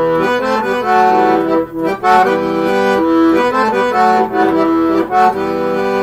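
Weltmeister chromatic button accordion playing an instrumental passage between sung verses: a melody moving note to note over held chords.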